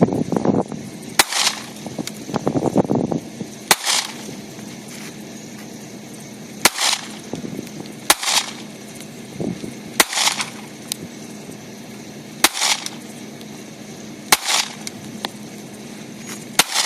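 Springfield XD .40-calibre pistol fired about eight times at a slow, uneven pace, a shot every two seconds or so, each a sharp crack with a short echo.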